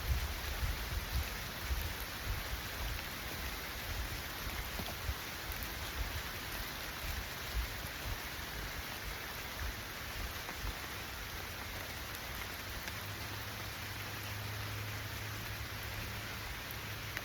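Steady rain falling, an even hiss, with low irregular thumps through the first half.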